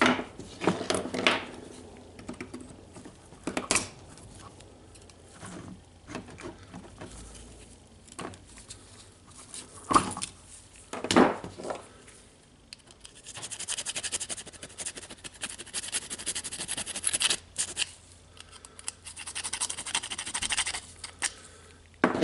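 A hand file scraping in quick repeated strokes inside an angle grinder's carbon-brush holder to free a sticking brush, for about eight seconds in the second half. Before it come scattered knocks and clicks of tools and parts handled on the bench.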